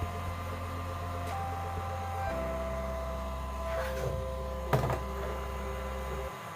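Background music of slow, held chords that change every second or two over a low bass, with a sharp click about four and a half seconds in; the music stops near the end, leaving a faint hum.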